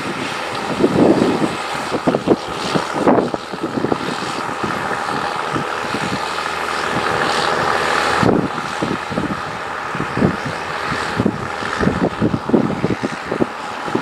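Massey Ferguson 8480 tractor's six-cylinder diesel running steadily under load while pulling an eight-furrow reversible plough, with irregular scraping and knocking from soil and clods turning off the plough bodies.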